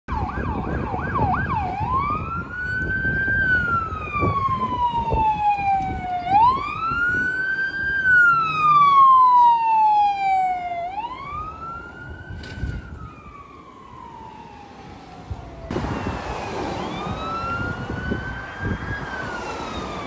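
Emergency vehicle siren: a few quick yelps, then a slow wail rising and falling in pitch, each cycle about four and a half seconds long.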